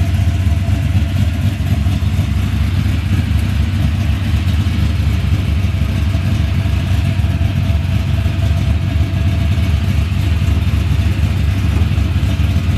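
Box-body Chevrolet's V8 idling with a loud, steady low rumble, holding at one speed without revving.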